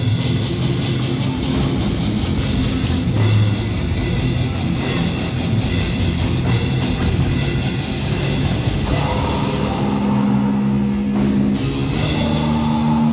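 Live heavy metal band playing loud, with distorted electric guitars and a pounding drum kit; about nine seconds in, the guitars move to held, ringing notes.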